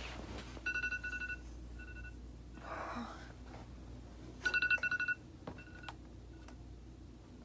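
Electronic alarm beeping a single high tone in short, quick bursts, with a soft rustle of bedding about three seconds in.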